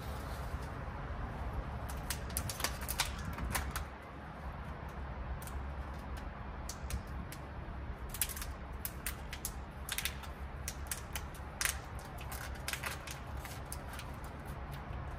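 Short, sharp clicks and scrapes in irregular clusters as a blade cuts into the bark of a jackfruit branch, taking off a ring of bark for an air layer. A steady low hum runs underneath.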